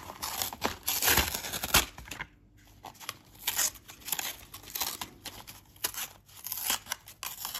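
Plastic blister pack being opened: its paper backing peeled and torn away, with the pack crinkling. Irregular rips and crackles, busiest in the first two seconds, then sparser after a short pause.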